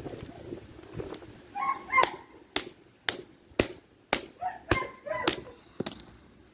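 A hammer striking a steel padlock, about eight sharp blows at a steady two a second from about two seconds in, beating on the lock to break it open because its key no longer works. Short animal calls come between some of the blows.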